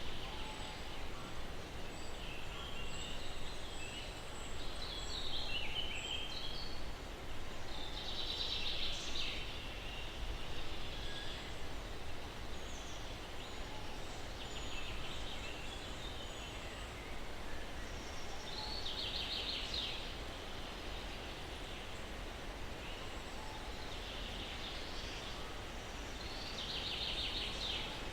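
Steady breeze through pine trees with birds singing. Short trilled song phrases come about every eight to ten seconds, with fainter chirps between them.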